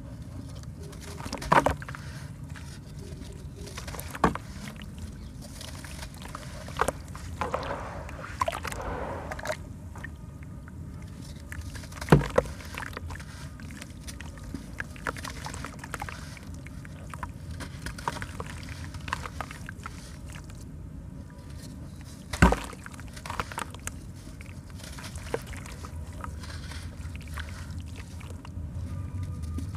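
Wet charcoal sand-cement block crumbled by hand into a bucket of water: gritty crumbling and sloshing water as sand and pieces fall in, with a few sharp, louder impacts, the strongest about twelve and twenty-two seconds in.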